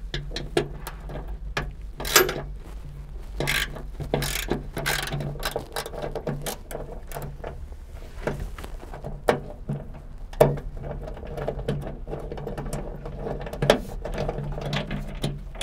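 Hand ratchet with a 10 mm socket clicking in repeated runs as it is swung back and forth to loosen trunk-lid hinge bolts, with a few louder clicks among them.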